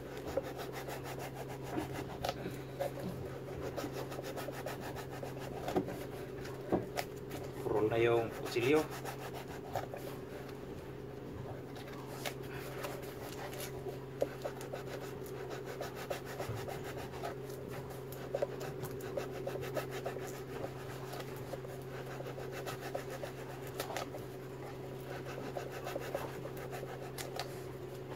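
A small knife cutting and scraping a groove into a large foam buoy, a run of rubbing, rasping strokes over a steady low hum.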